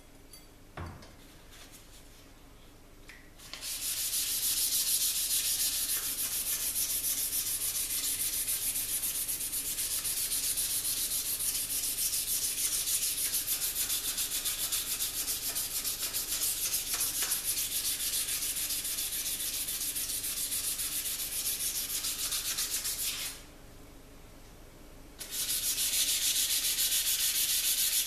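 Dry sandpaper rubbed rapidly back and forth by hand over the hardened steel blade of a Damascus and wootz san mai kitchen knife, polishing off the black scale. The rubbing starts a few seconds in, stops for about two seconds near the end, then resumes.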